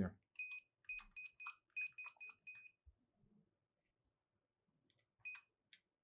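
Access control keypad giving a short, high beep for each button pressed as a code is keyed in: a quick run of about nine beeps over two and a half seconds, then one more near the end.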